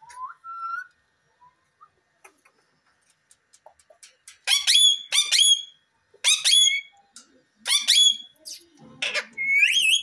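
Rose-ringed (Indian ringneck) parakeet calling: a short rising chirp at the start, then, from about halfway, a run of about six short, sharply rising whistled calls.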